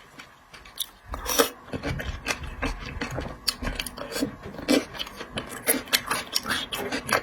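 Close-up eating and food-handling sounds from a seafood meal: a quick, irregular run of crackling, rasping clicks starting about a second in, with low dull thumps over the first few seconds.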